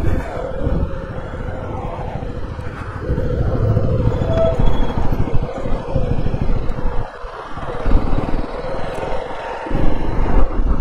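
A 100cc single-cylinder motorcycle engine running steadily while the bike is ridden. Its sound eases off briefly twice in the second half.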